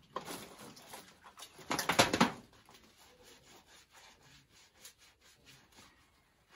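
Soapy bath sponge scrubbing skin on the legs: scratchy rubbing strokes, with a louder burst of rubbing about two seconds in and softer strokes after.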